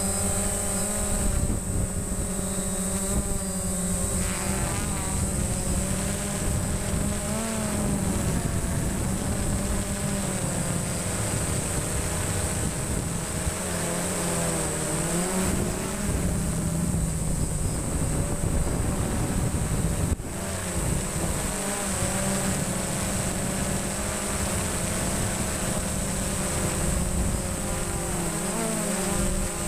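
DJI Phantom quadcopter's motors and propellers buzzing in flight, heard from the camera slung beneath it. The pitch drifts up and down as the motor speeds change while it manoeuvres, with wind noise on the microphone.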